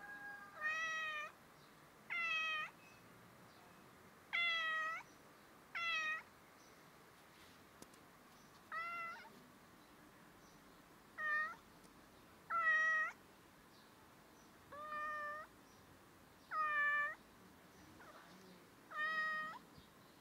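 Young grey tabby cat meowing repeatedly: about ten short meows, each around half a second, coming every second or two.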